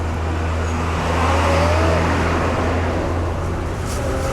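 Steady car and road-traffic noise: a constant low engine hum under a rushing noise.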